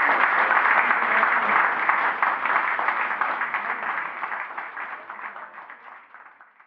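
Audience applauding, many hands clapping in a dense patter, fading away over the last three seconds or so.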